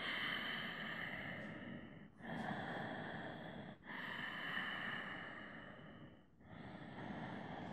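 A man's slow, deep breathing close to the microphone: four long, audible breaths in and out, each one to two and a half seconds, with brief pauses between them.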